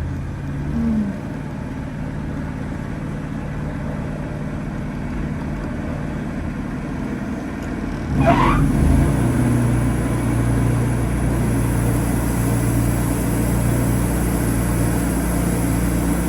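Wood-Mizer LT40 Super sawmill's engine running steadily. About halfway through it steps up and gets louder, with a brief rising squeal as it does.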